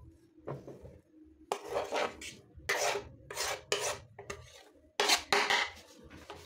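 Knife blade scraping sliced red onions off a wooden chopping board into a glass bowl, a run of short scrapes in small groups with brief pauses.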